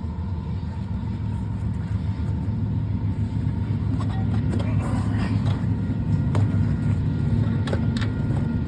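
Steady low rumble of vehicle traffic, growing slightly louder, with a few light clicks and taps about four to six seconds in and again near the end.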